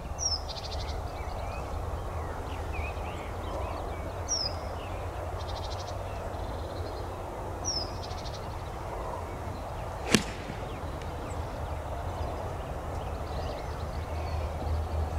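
A golf club strikes a ball off the tee once, a sharp crack about ten seconds in. Before it a bird gives short, high, downward-sliding calls three times, over a steady low rumble.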